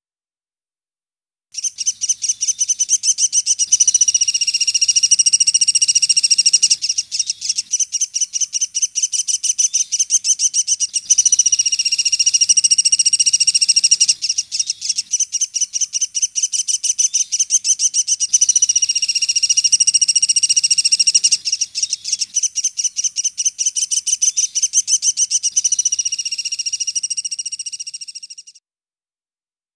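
Sunda pygmy woodpecker (pelatuk sampit) calling: a loud, rapid trill of high, sharp notes repeated in long phrases with brief dips in between. The recording is cut off below the bird's pitch, so only the high notes sound.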